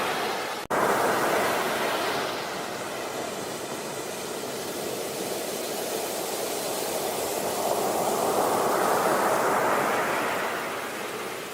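Sea waves breaking and washing on a beach, a steady rushing that swells and ebbs, with one swell building and fading in the second half. The sound cuts out for an instant under a second in.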